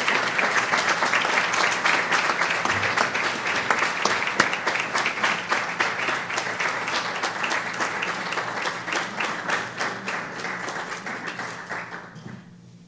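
Audience applauding: dense clapping that slowly fades and stops about a second before the end.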